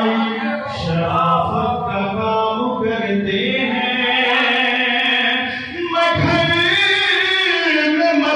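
A man's voice chanting Urdu devotional verse into a microphone in a melodic, sung style, drawing out long notes.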